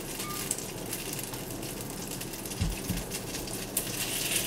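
Foaming brown butter sizzling and crackling in a black steel frying pan as Brussels sprout leaves are dropped in, the sizzle growing a little louder near the end. Two soft low thumps a little before three seconds in.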